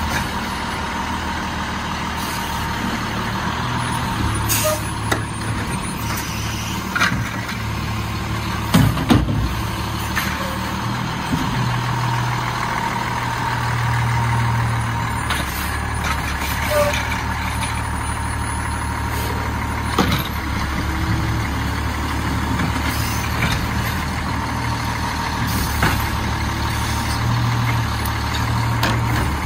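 Diesel engine of an Autocar WXLL garbage truck with a McNeilus Autoreach automated side loader running steadily, with several sharp knocks and clanks.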